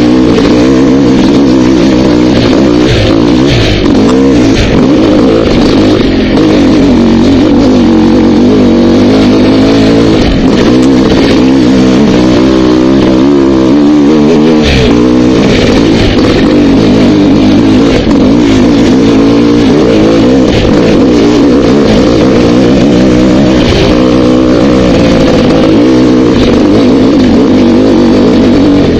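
Dirt bike engine running loud, its pitch rising and falling continuously as the throttle is worked, with a few sharp knocks from the bike over rough ground.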